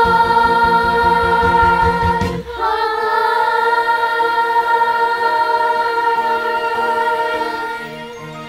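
A choir of young girls' voices sings a musical-theatre number over low instrumental accompaniment. About two and a half seconds in, the accompaniment drops away and the voices hold one long chord, which fades near the end.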